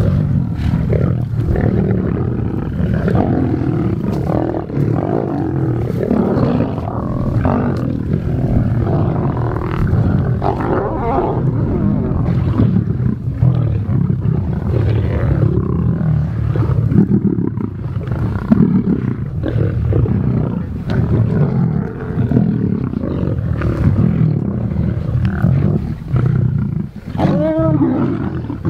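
A group of lions growling continuously over a carcass while feeding, the sound of competition over food at a kill. A short pitched call rises and falls near the end.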